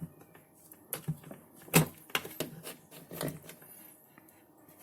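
Irregular sharp clicks and taps of small hard parts being handled, the loudest about two seconds in: wires and a small screwdriver worked at the terminal block of a digital fridge temperature controller during rewiring.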